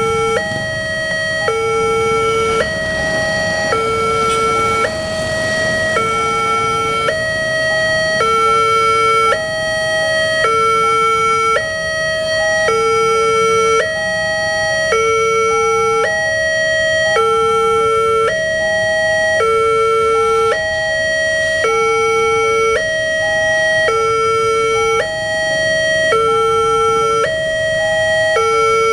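Railway level-crossing alarm: two electronic sirens sounding together, each switching between two tones about once a second, with short beeps in between. It is the crossing's warning of an approaching train while the barriers are down.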